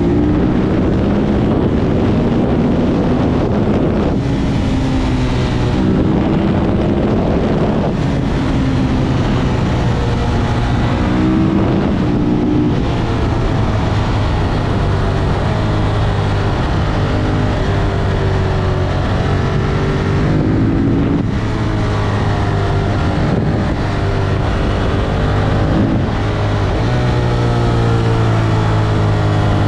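Ducati Monster 1200 S V-twin engine pulling hard, its pitch rising and falling through the gears with several quick gear changes, with wind rushing over the microphone.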